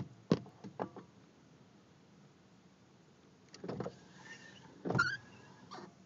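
A gull's beak pecking at a car windshield: four sharp taps in the first second. Two later clusters of knocks and scraping follow, the second about five seconds in with a brief squeak.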